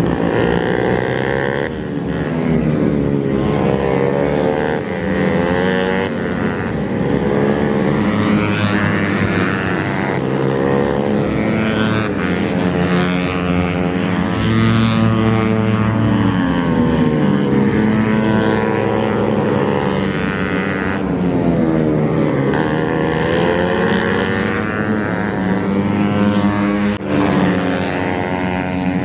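Several racing motorcycles running hard around the circuit, their engine notes overlapping. The pitch repeatedly climbs and drops as they rev, shift and brake for corners.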